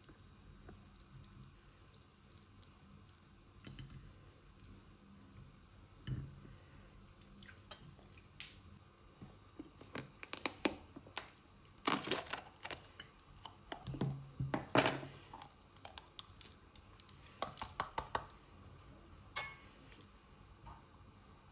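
A kitchen knife cutting around the stem of a green pepper and working out the core: a run of crisp clicks and crunches, at times in quick clusters, after a few seconds of soft handling of the stuffed eggplants.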